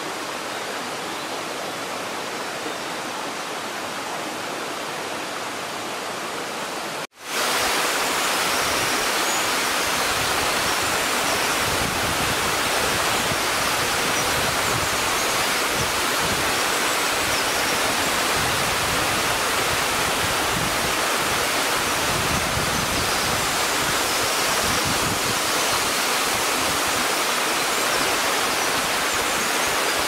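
Water of a twin waterfall, two streams plunging into one pool, making a steady rushing roar. About seven seconds in it cuts out for an instant, then comes back louder and fuller in the low end.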